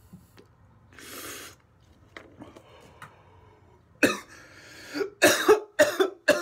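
A man coughs hard after a big hit from a THC vape-cartridge pen: a short breathy exhale about a second in, then from about four seconds a rapid fit of about six loud coughs.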